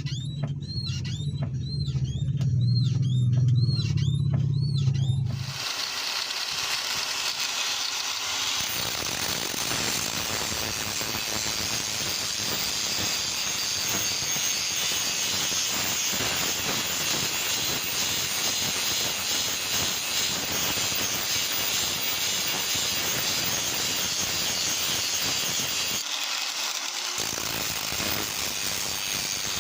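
A power tool on metal: first a motor hum with a squeal that rises and falls about twice a second, then, a few seconds in, a steady grinding hiss that runs on.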